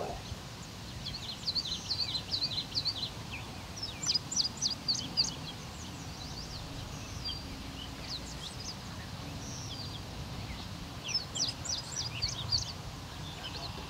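Songbirds singing: three runs of quick, high chirps, the middle one the loudest, over a steady low outdoor rumble.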